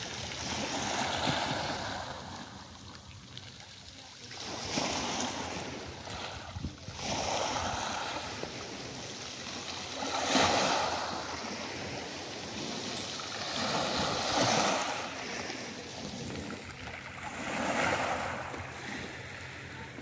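Sea waves washing onto a beach, the surf swelling and falling away about every three to four seconds.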